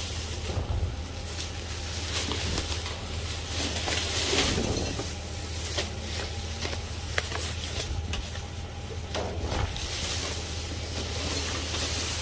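Clear plastic trash bags rustling and crinkling as a gloved hand rummages through them, over a steady low hum.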